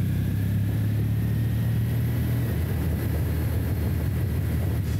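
Kawasaki W800's air-cooled parallel-twin engine running while the motorcycle rides at low speed, its note dropping about halfway through. Over the first couple of seconds a faint high 'jee' whine comes from the front brake's Daytona red pads: the normal operating sound of these pads, not a fault.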